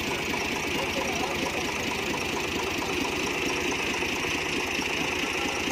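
Farm tractor's diesel engine running steadily, with a fast, even beat of its firing strokes.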